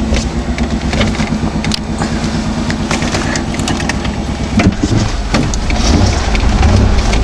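Chevy Blazer's engine running under load in four-wheel drive, with frequent sharp knocks and rattles. The engine gets louder about two-thirds of the way through.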